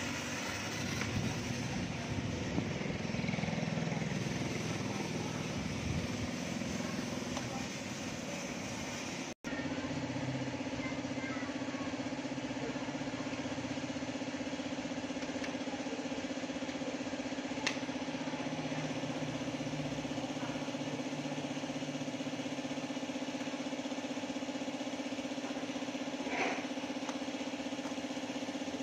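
A motor runs steadily with a constant hum. It drops out for an instant about nine seconds in and then carries on steadier than before.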